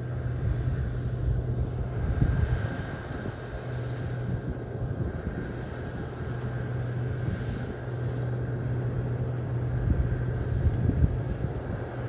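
Combine harvester running while cutting wheat, a steady low drone from across the field. Wind buffets the microphone in gusts, about two seconds in and again near the end.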